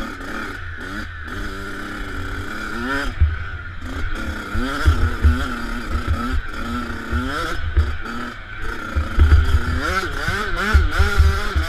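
Motocross bike's engine, heard from the rider's helmet camera while riding a dirt track, revving up and easing off again and again with the throttle, over a heavy low rumble from wind and bumps.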